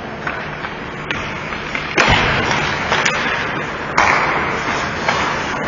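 Ice hockey play in a rink: sharp bangs, the loudest about two and four seconds in, each followed by about a second of hiss, over steady rink noise.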